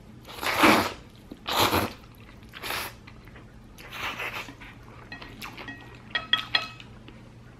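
A person slurping spicy instant noodles, four loud slurps in the first half, the first the loudest, followed by quieter chewing and mouth clicks.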